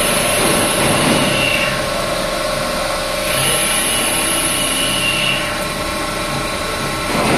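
CNC oval-turning lathe running as it machines a piston blank: steady machine and cutting noise, with high whines that come in twice and fade out.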